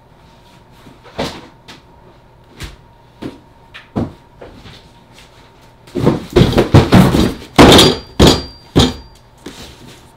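Cardboard shipping boxes being set down and handled on a tabletop: a few separate knocks, then a dense run of loud thumps and scrapes in the second half.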